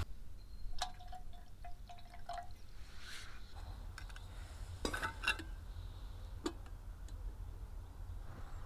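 Small metal camping kettle clinking: a few light metallic taps with a short ringing note about a second or two in, then more clinks around five and six seconds in, as the kettle, its lid and its wire bail handle are handled.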